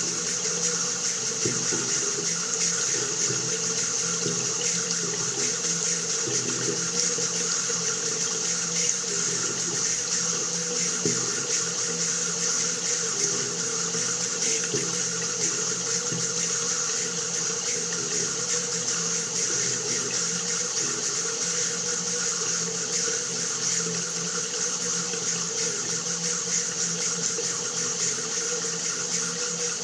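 Water running steadily from a tap into a basin, an even rushing splash with no break.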